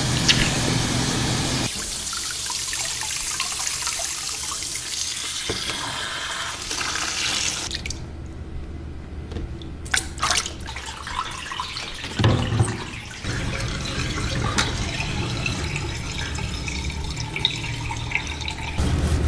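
Water from a handheld shower sprayer hissing and splashing onto a cat's wet fur in a plastic tub, with a short break about eight seconds in.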